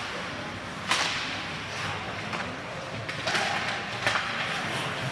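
Ice hockey play in a rink: a sharp crack about a second in, with lighter knocks at about three and four seconds, over a steady hiss of the arena.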